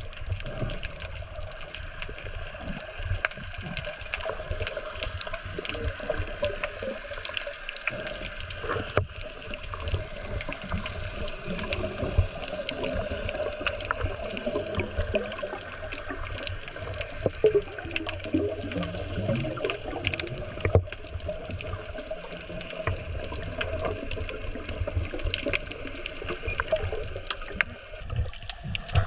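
Underwater sound picked up by a camera in a waterproof housing: a steady, muffled wash of water with many scattered clicks and crackles.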